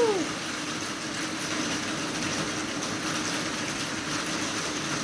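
Steady hiss of heavy rain against the windows, with a faint steady hum underneath.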